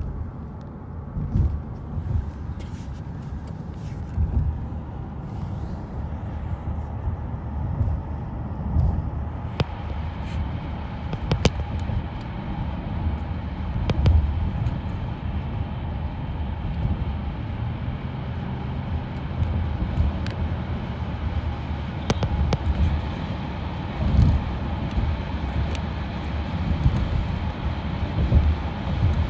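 Steady low rumble of a moving vehicle, with scattered clicks and knocks.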